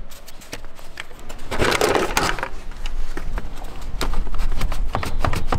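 Tractor air filter element being worked out of its plastic intake housing: a scraping, crunching slide for about a second, with handling clicks and knocks before and after.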